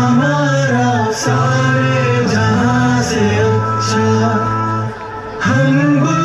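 A song with a male singing voice over instrumental backing, dipping briefly about five seconds in.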